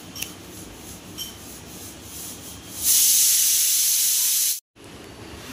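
Cat lapping from a bowl, with faint wet ticks, then a loud steady hiss that starts about halfway through and cuts off suddenly near the end.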